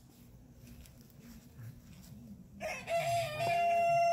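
Rooster crowing: one long, steady-pitched call starting about two and a half seconds in.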